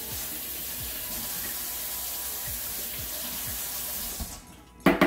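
Kitchen faucet running into a stainless steel sink: a steady rush of water that shuts off about four seconds in. A loud clatter follows near the end.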